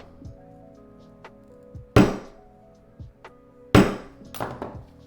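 Two hard, sharp knocks, about two seconds in and again nearly four seconds in, with a few light taps between them, like blows from a hammer or mallet. Soft background music runs underneath.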